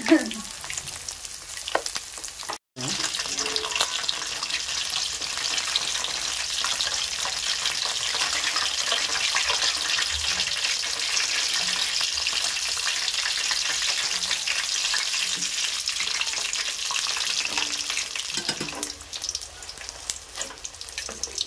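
Battered chicken feet deep-frying in hot oil in an aluminium kadai: a dense, crackling sizzle of many fine pops, with steel tongs now and then touching the pan as the pieces are turned. The sound breaks off for an instant about two and a half seconds in and eases near the end.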